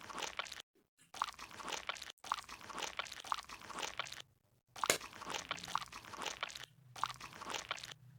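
Slime being squeezed and pressed by hand, giving dense crackling, crunchy popping in runs of a second or two, broken by short silences.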